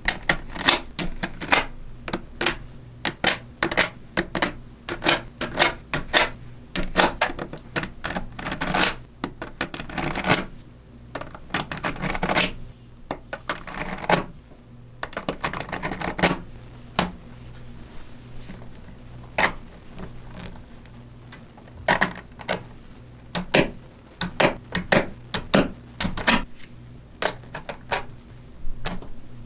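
Small magnetic balls clicking and snapping together as they are handled and assembled: irregular runs of sharp clicks, with short pauses between them.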